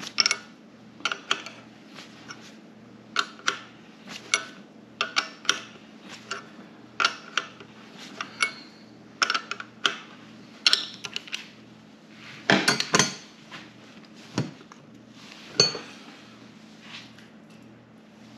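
Sharp metal clicks and clinks, often in quick pairs, from a lever-type valve spring compressor pressing down valve springs and retainers on a cylinder head while the valve keepers are set. A denser, louder rattle of metal comes about twelve and a half seconds in, over a steady low hum.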